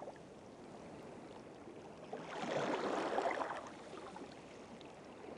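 Faint sound of water, with no clear pitch, swelling about two seconds in and fading away over the next two seconds.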